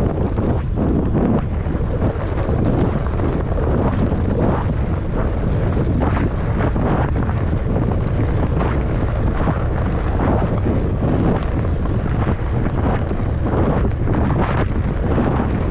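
Wind buffeting the microphone of a moving e-bike rider: a steady low rumble with uneven gusty flutters.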